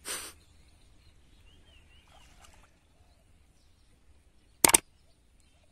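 Two sharp click sound effects in quick succession about four and a half seconds in, from an on-screen subscribe-button animation being clicked. There is a short rush of noise at the start, and faint bird calls over quiet outdoor background.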